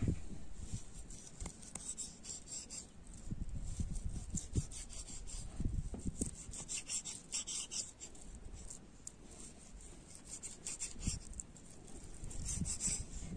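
Knife slicing through a block of raw mutton tail fat on a wooden board: repeated short scraping strokes, with a few soft knocks of the blade against the wood.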